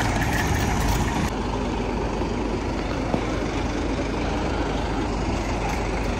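Sleeper bus engine running, a steady low rumble, with the higher street noise thinning out about a second in.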